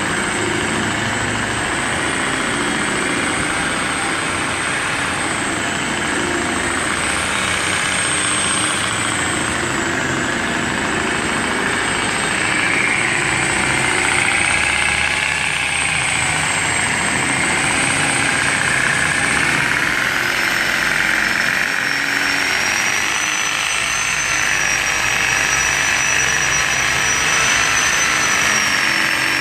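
Handheld electric machine polisher running steadily during paint correction, its motor whine wavering in pitch as the pad is pressed and worked over the car's paint. A higher thin whine joins about two-thirds of the way through.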